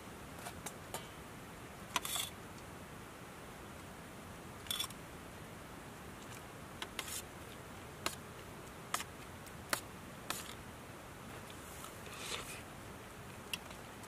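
A metal spoon clinking and scraping against a steel plate and container while dal and rice are served and eaten: about a dozen short, sharp clicks and a few brief scrapes, scattered irregularly.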